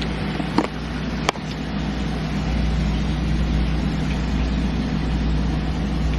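Steady hum of a car engine running, heard from inside the car, with a couple of light clicks in the first second or so.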